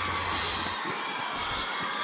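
Crowd cheering and shouting after a song, with the band's last cymbal crashes and low bass hits sounding twice over the noise.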